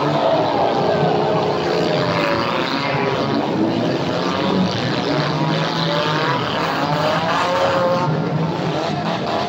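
Several demolition derby cars' engines running and revving at once, their pitches rising and falling over one another.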